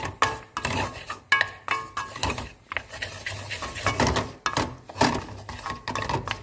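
A spatula scraping and knocking against a pan as noodles are stir-fried and tossed. The strokes come irregularly, about two a second.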